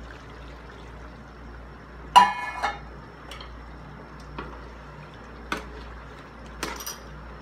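Coconut milk being poured into a simmering wok of chicken curry over a steady low hiss. A loud, ringing metal clink about two seconds in, then a few light knocks of a metal spoon in the wok as the curry is stirred.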